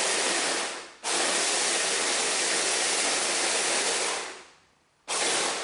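Electric mini chopper pulsing chimichurri herbs and vinegar into a coarse purée: the motor whirs in three bursts, winding down about a second in, running again for about three seconds, then a short burst near the end.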